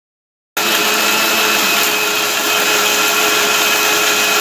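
Electric mixer grinder running at a steady speed, grinding onion, green chillies, coriander, ginger-garlic and whole spices into a paste: a loud, even whirr with a steady whine, starting abruptly about half a second in.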